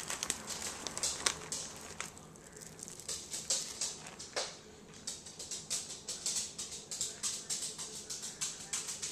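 Plastic bag of pre-grated cheese crinkling and rustling in irregular short spurts as cheese is taken out by hand and sprinkled, with a quieter spell a couple of seconds in.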